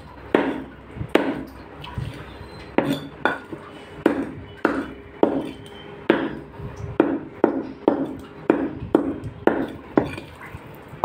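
Meat cleaver chopping chicken on a block, sharp chops about two a second with a short ringing after each, pausing briefly about two seconds in.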